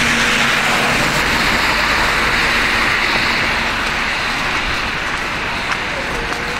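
Double-decker bus passing close by on a wet, slushy road: a steady engine hum under loud tyre hiss and spray from the wet tarmac, fading slowly as it moves away.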